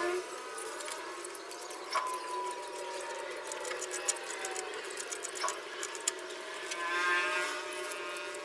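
Craft knife blade cutting through a sheet of polystyrene foam, the foam squeaking and creaking in long sliding squeaks as the blade is drawn round, with small crackles and clicks.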